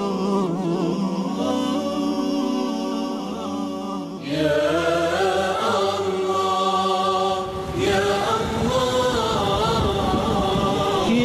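A choir singing a wordless a cappella nasheed: layered voices holding long chords that change about four and about eight seconds in.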